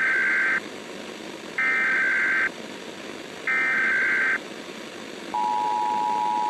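Emergency Alert System tones: three short, evenly spaced bursts of the digital data header, then the steady two-tone attention signal starting about five seconds in, over a constant hiss.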